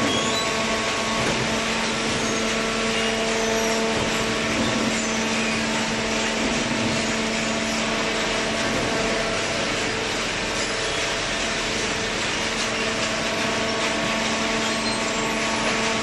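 Horizontal cardboard baler running: a steady machine hum from its electric motors and hydraulic pump, with several fixed tones over a constant rushing noise.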